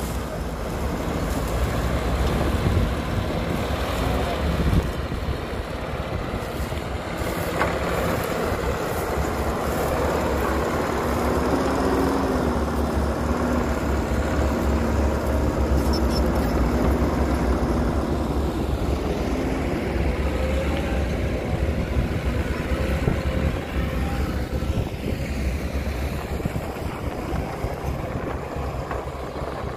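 Caterpillar hydraulic excavator's diesel engine running under load as it loads dirt into a dump truck, a continuous low drone whose pitch lifts and holds for several seconds near the middle. A few sharp knocks come in the first several seconds.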